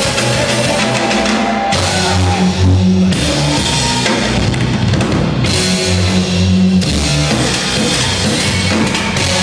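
Live percussion performance: dense, loud drumming with heavy low drum beats and a driving rhythm.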